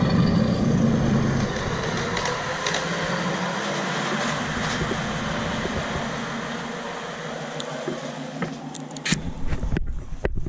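Miniature ride-on diesel-outline locomotive and passenger car running past on the track, with a steady running noise that fades as the train moves away. A few sharp clicks and knocks come near the end.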